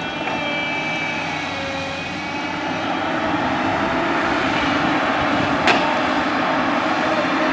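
Diesel engine of a JCB backhoe loader running steadily under work, growing slightly louder partway through. A single sharp knock sounds about five and a half seconds in.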